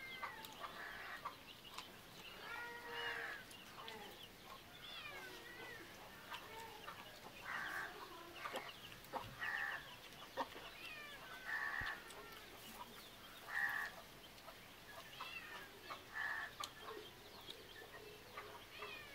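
Domestic chickens clucking: short clucks roughly every two seconds, with a few higher calls that slide up and down in pitch.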